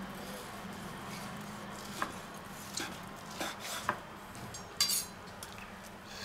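Carving knife and carving fork working through a cooked roast on a wooden cutting board: soft slicing scrapes and several light clicks of metal on wood from about two seconds in, the sharpest near five seconds, over a faint steady hum.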